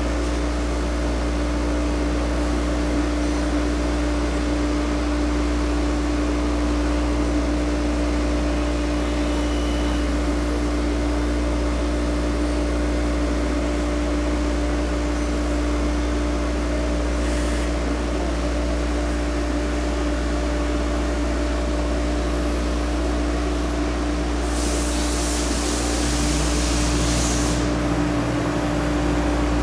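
ANCA CNC tool grinder running, a steady hum with a hiss of coolant spray, as its grinding wheel cuts the corner-radius gash on an end mill. Near the end, a louder high hiss comes in for about three seconds.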